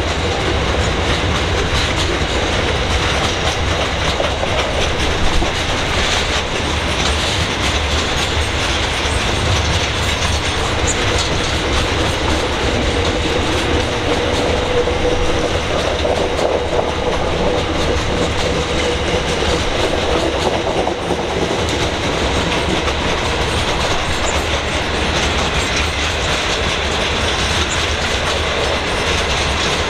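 Loaded grain hopper wagons of a freight train rolling past, a steady noise of wheels running on the rails. A faint whine comes in around the middle and fades again.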